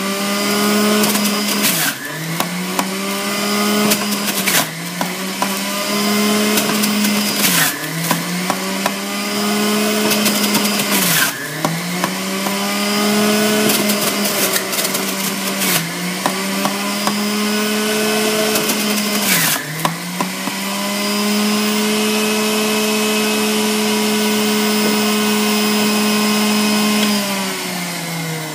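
Centrifugal juicer motor running. Its pitch sags and recovers about seven times as tomatoes and other produce are pushed down the chute and shredded, with crunching at each push. It then runs steadily with no load for several seconds and winds down near the end.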